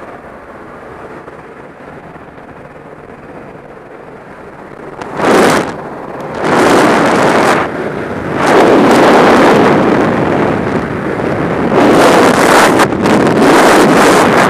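Steady rush of air at the open door of a jump plane, then, from about five seconds in, loud gusts of wind buffeting the helmet-camera microphone. These become continuous freefall wind noise once the skydivers are out of the aircraft.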